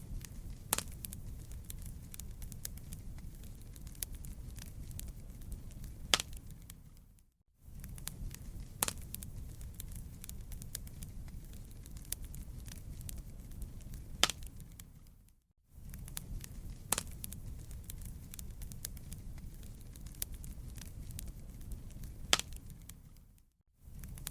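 Wood campfire crackling: dense small crackles and a few sharp, louder pops over a low rumble of burning. About every eight seconds the sound fades out to a brief silence and the same short stretch starts again, three times over.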